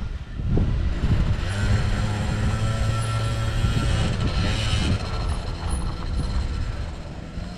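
A motor hums steadily for a few seconds under gusts of wind buffeting the microphone.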